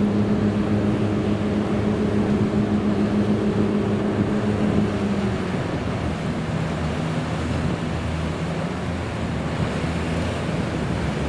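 Engine of the ferry boat Dai-18 Wakato Maru running with a steady hum over rushing water and wind. About five seconds in, the hum drops to a lower note.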